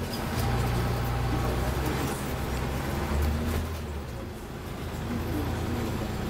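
Scania N94UB single-deck bus's diesel engine heard from inside the passenger saloon, a strong low drone under load that eases off about four seconds in.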